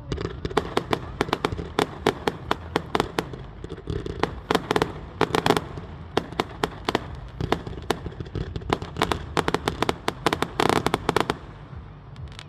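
Fireworks display going off: rapid sharp bangs and crackles, several a second, over a low rumble, with a dense burst of crackling near the end.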